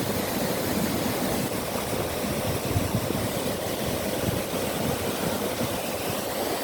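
Rushing water of a river and waterfall, a steady low rush.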